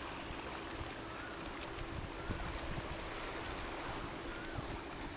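Sea waves washing over a shallow rocky shore flat, a steady noisy wash with wind on the microphone and a faint steady hum underneath.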